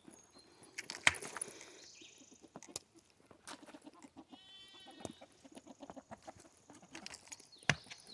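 Hens clucking quietly in a coop, with one drawn-out call about halfway through. Two sharp knocks sound, about a second in and again near the end.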